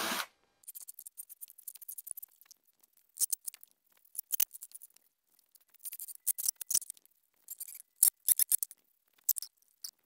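A cordless drill-driver's whir cuts off right at the start, followed by scattered clicks, light knocks and scrapes as the drill and a plywood box are handled and set down on a wooden workbench.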